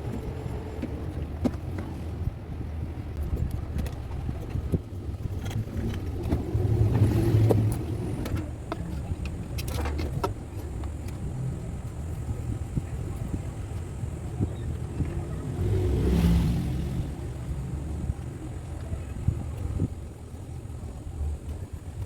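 Plastic wall-fan blade being fitted onto the motor shaft: scattered small clicks and knocks of handling, over a steady low rumble that swells twice, about seven and sixteen seconds in.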